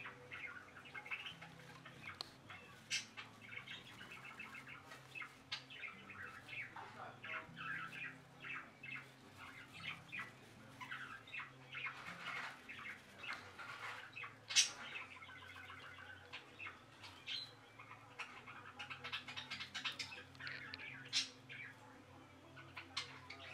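Pet budgerigars chattering: a steady stream of short chirps and warbling notes, with one sharper, louder note a little past halfway.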